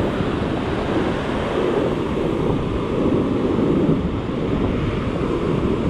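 Ocean surf breaking and washing up a sandy beach, swelling and easing, with wind buffeting the microphone.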